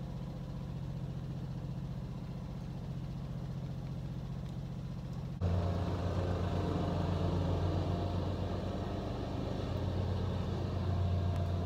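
A steady low mechanical hum, like a motor running, which suddenly gets louder and deeper about five seconds in.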